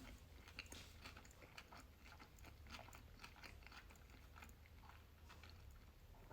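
Faint close-miked chewing of a spicy crab sushi roll: many small, irregular wet mouth clicks and smacks.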